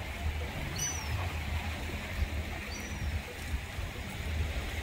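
Steady outdoor rumble and hiss, like wind on the microphone, with two short high chirps about one second and three seconds in.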